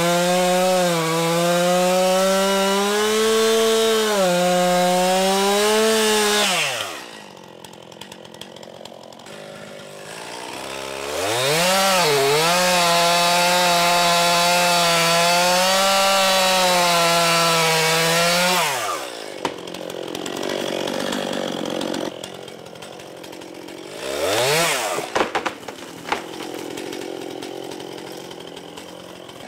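Stihl chainsaw cutting into a thick fresh pine limb at full throttle, dropping to idle about six and a half seconds in. It revs back up into a second cut at about eleven seconds, falls to idle again after about eighteen seconds, and gives one short burst of throttle near twenty-five seconds.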